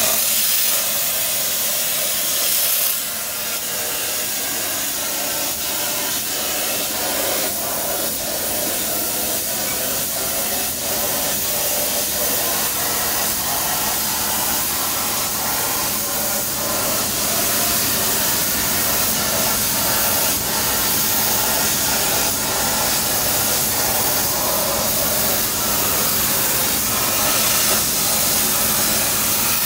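CNC plasma cutting torch, fed by a 400 A high-definition Kaliburn plasma source, cutting through metal plate: a steady hiss from the plasma arc as the torch tracks along the cut.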